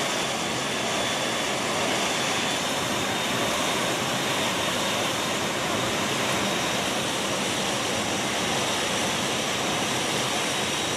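Steady rushing wind through the open paratroop door of a C-17 transport in flight, mixed with the noise of its jet engines, with a faint steady high whine.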